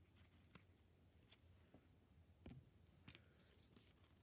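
Near silence, with a few faint soft clicks and rustles of fingers handling a plush toy's fabric tag.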